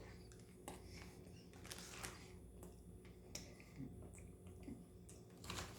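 Faint chewing: soft mouth smacks and clicks at irregular intervals as a bite of burger is eaten.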